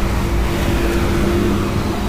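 Motor vehicles passing on the adjacent road: a steady engine hum over road noise.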